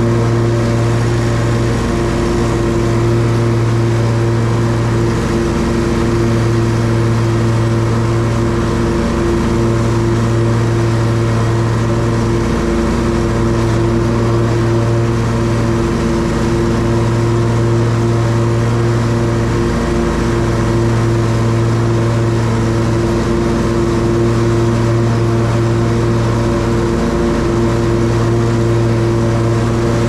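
Hustler Trimstar 52-inch walk-behind mower running steadily while mowing, giving a constant, even-pitched engine hum.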